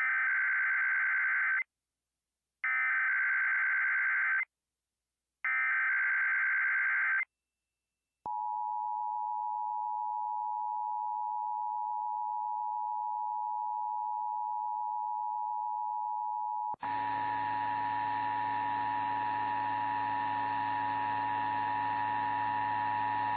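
Emergency Alert System test: three screeching bursts of SAME digital header data, each about two seconds long with a second's gap between them. Then comes the steady two-tone EAS attention signal (853 and 960 Hz), held for about fifteen seconds. About halfway through the tone, a lower hum and hiss join it.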